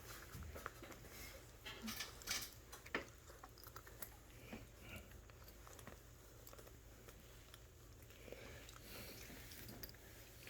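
Faint, scattered clicks and crackles of Mastiff-Lab cross puppies chewing and mouthing, with one sharper click about three seconds in.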